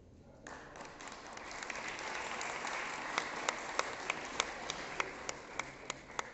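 Audience applause that starts about half a second in, builds and then eases off. Over the second half, one person's sharp claps stand out close by, about three a second.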